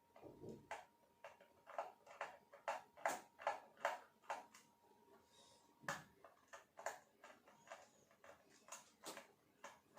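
Faint clicking, about two clicks a second, unevenly loud, as a small screw is undone with a screwdriver, typical of a ratcheting screwdriver.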